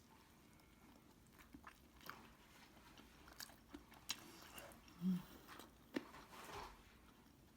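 A cat's mouth working close by: faint, irregular wet clicks and smacks. A brief low tone sounds about five seconds in.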